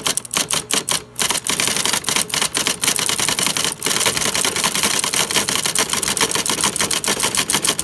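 Electric typewriter typing fast, its type striking the glass back of an iPhone 4S set in place of paper: a rapid, continuous run of sharp clacks, with brief pauses about a second in and near four seconds.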